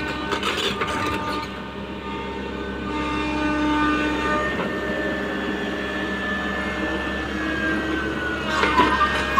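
Tata Hitachi 120H excavator running, its engine and hydraulics giving a steady whine of several held tones, one sliding slightly lower near the end. A few sharp knocks come just before the end.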